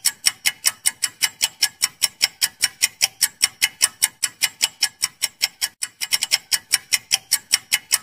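Clock-ticking sound effect of a quiz countdown timer: fast, even, sharp ticks, about five a second, with a brief hitch a little before six seconds in.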